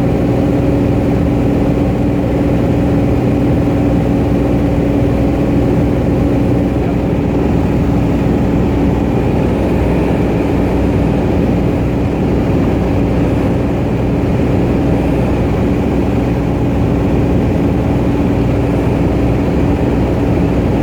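Cessna 210 Centurion's six-cylinder piston engine and propeller running steadily at constant power, a loud even drone with a fixed hum.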